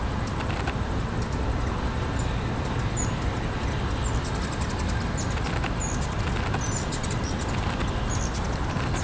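Hummingbirds giving short, high chip calls, scattered about once a second from a few seconds in, over a steady low background rumble.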